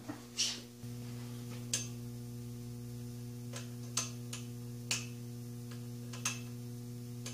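A lamp's three-way rotary socket switch being turned, giving about eight sharp clicks at uneven intervals without the bulb lighting; the owner says the switch is broken and has to be played with. A steady low electrical hum starts about a second in.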